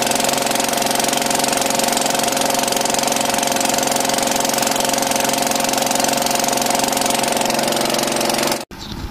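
Boat engine running steadily at an even pitch, then cutting off suddenly near the end.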